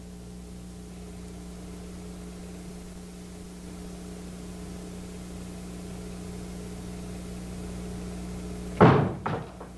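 A steady low hum, then near the end one loud bang followed by two weaker knocks in quick succession.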